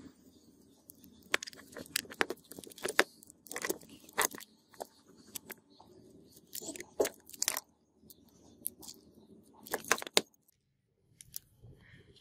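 Flat screwdriver prying and scraping at the carbon brush holder of a rusty jigsaw's electric motor, whose carbon brushes are broken: an irregular run of sharp metallic clicks, scrapes and crunches that stops briefly near the end.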